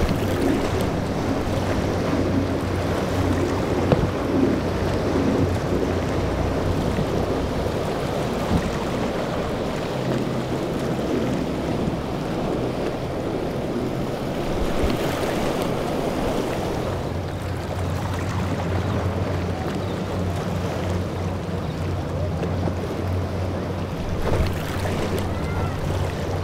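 Azimut 50 motor yacht running at speed through rough inlet water: a steady low engine drone under the rush of spray and breaking waves, with wind buffeting the microphone.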